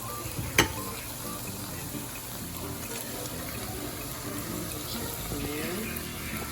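Sliced chicken sizzling in a hot pan, a steady hiss, with one sharp knock about half a second in.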